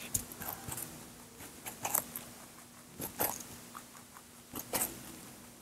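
Lop-eared rabbit biting and crunching a raw carrot, in four short bursts of crisp crunches about a second and a half apart.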